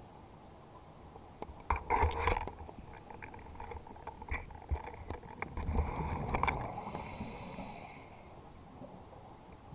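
Scuba diver's regulator breathing underwater: exhaled bubbles rumble and gurgle past twice, about two seconds in and again around six seconds, with a thin high tone near the end of the second breath.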